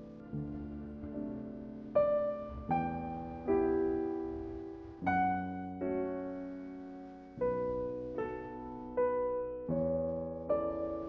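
Slow, gentle background piano music: single notes and soft chords struck about once a second, each ringing and fading before the next.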